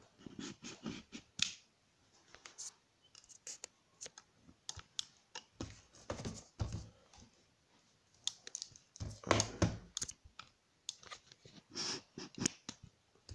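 Irregular clicks, taps and rustles of objects being handled on a desk, with a denser burst of rustling about nine seconds in.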